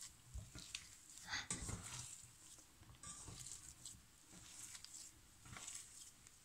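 Peeled boiled potatoes being crushed and mashed by hand in a stainless steel pot: faint, irregular soft squishing and crumbling with a few light taps.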